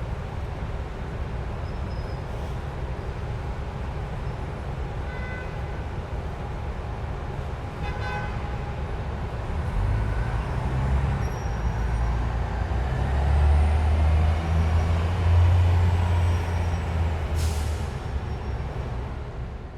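Busy Manhattan street traffic. About halfway through, a heavy vehicle such as a bus or truck passes close with a loud engine rumble. Near the end there is a short air-brake hiss.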